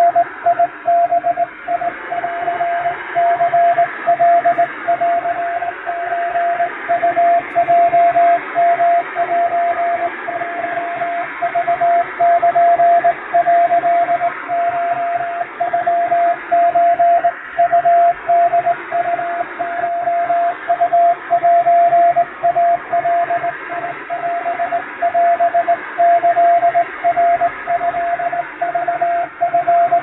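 Japanese wabun Morse code (CW) sent as a rapidly keyed single-pitch beep. Hiss and static run under it, and the signal fades in and out, made to sound like real on-air shortwave telegraph reception.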